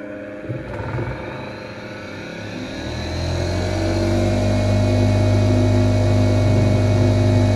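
Old Italian bench grinder's electric motor, rebuilt with new bearings and with a wheel fitted, spinning up from switch-on with a rising whine over about two seconds. It then runs steadily with a strong hum at its rated 2500 rpm.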